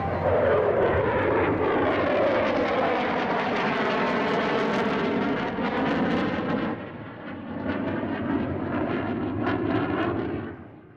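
Jet noise from a McDonnell Douglas RF-4E Phantom II's two J79 turbojets as it passes overhead, a dense rush with sweeping shifts in pitch. It eases about seven seconds in, swells again, then fades away near the end.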